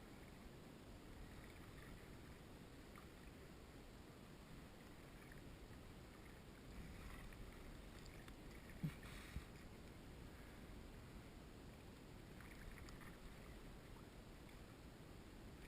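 Near silence: a faint low rumble, with two soft knocks about half a second apart a little past the middle.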